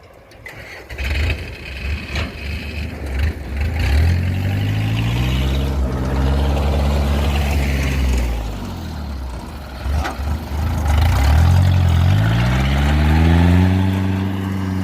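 Kubota DC70 combine harvester's diesel engine revving: its pitch climbs about four seconds in and holds, sinks back a little past the middle, then climbs again and holds high near the end.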